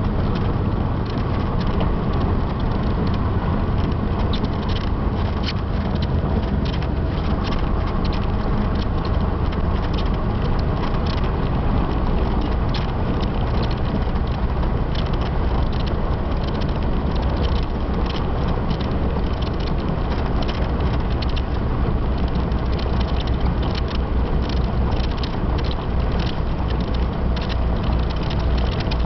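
Cessna 172's piston engine and propeller running steadily, heard inside the cockpit as the plane rolls along the runway, with many small crackles over the drone.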